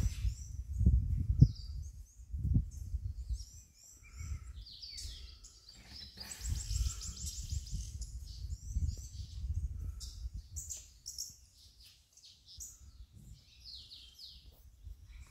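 Wild birds calling and chirping on and off, with a fast trill of high notes about six seconds in. Underneath there is a low rumbling noise in gusts, loudest in the first three seconds.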